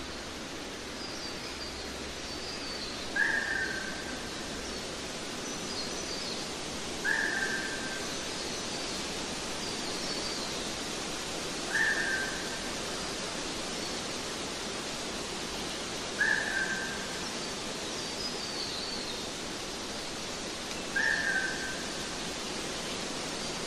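Nature soundtrack: a bird repeats a short call, dropping slightly in pitch, about every four to five seconds (five times), with fainter high chirps between, over a steady hiss.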